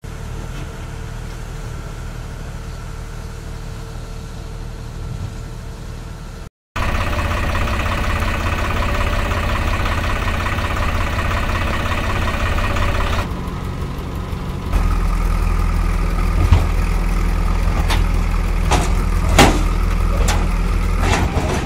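Diesel engines of heavy site machinery running, in short clips cut together: first quieter, then a JCB backhoe loader's engine running loudly after a brief cut to silence, then a deeper engine rumble with several sharp knocks near the end.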